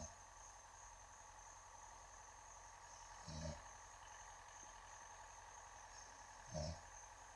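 A man snoring: two short, low snores about three seconds apart, one about three seconds in and one near the end.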